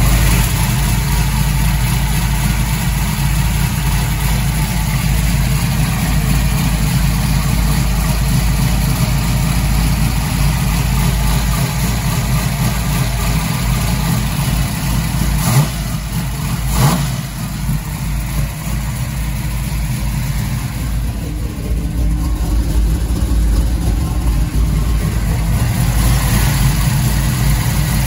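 Carbureted 1969 Camaro engine, just fitted with a new FST carburetor, running steadily at idle with the hood up, in its first run to check the new carburetor for fuel leaks.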